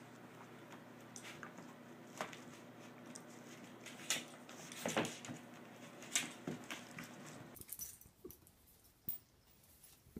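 Two dogs play-fighting: scuffling and shuffling with a scatter of short sharp clicks and rattles. About three-quarters of the way through, it drops to a much quieter room with only a few faint clicks.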